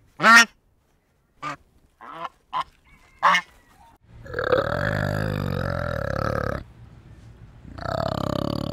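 White domestic geese honking in about six short calls over the first three and a half seconds, the first the loudest. Then a flanged male orangutan gives a long, deep, throaty call lasting about two and a half seconds, beginning about four seconds in, and starts a second one near the end.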